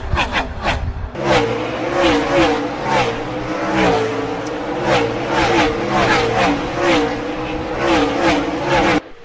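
NASCAR Gen-6 stock car V8 engines at racing speed. The engine note rises and falls about once a second, after a choppy first second, and the sound cuts off abruptly near the end.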